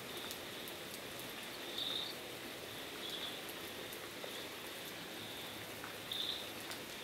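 Knife slicing raw jackfruit seeds into thin strips: faint, crisp cuts at irregular intervals over a steady hiss. A few brief high chirps stand out, about two seconds in and again near the end.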